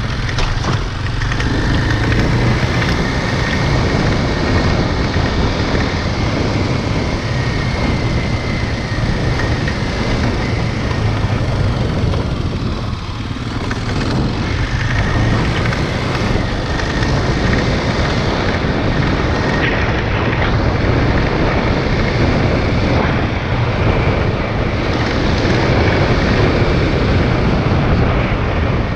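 Motorcycle engine running as the bike rides along, heard with wind noise on the rider's helmet-mounted camera microphone; it eases off briefly near the middle as the bike turns a corner.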